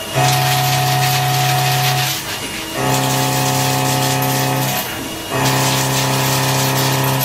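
CNC milling cutter cutting into a steel block: a steady pitched whine with a hiss of cutting, in three runs of about two seconds each, broken by short pauses.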